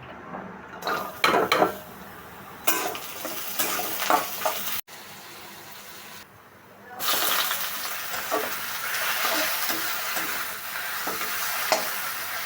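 Food frying in hot oil in a pan, sizzling steadily while a utensil stirs it and clinks against the pan now and then. The sizzle grows louder and fuller about seven seconds in.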